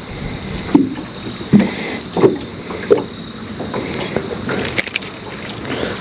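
Short, irregular knocks and handling noises on a fishing boat, about five in all and spaced roughly half a second to two seconds apart, over a faint steady high whine.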